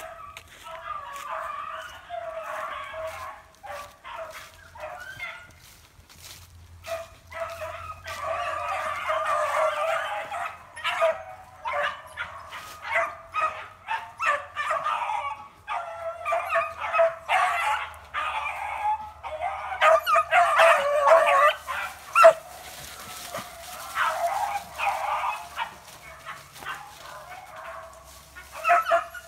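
A pack of hunting hounds baying and yipping together in the brush while running a trail, the chorus swelling and fading in waves, loudest about a third of the way through and again about two-thirds through.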